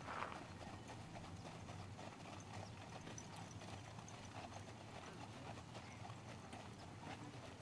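Hooves of a four-pony carriage team walking on an arena surface, giving a steady irregular clopping, with one brief louder sound right at the start.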